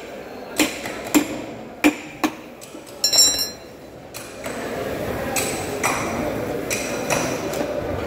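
Fish knife chopping through a large grunter fish into steaks on a wooden block: four sharp knocks in the first two and a half seconds, then a short metallic ring about three seconds in. Steadier background noise with a few faint clicks follows.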